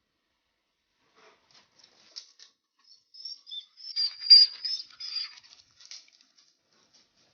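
Young blackbird's thin, high squeaking calls mixed with quick light tapping and scratching, loudest about four seconds in.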